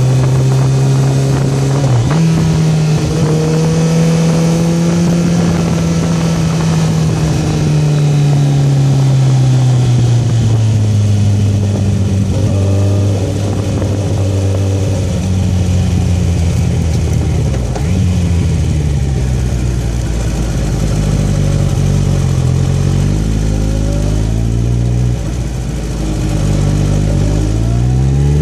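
Kawasaki Concours 14's inline-four engine heard from the rider's seat as the bike slows through the low gears. The engine note falls, steps and climbs again with throttle and downshifts, over steady wind rush, and it revs up near the end.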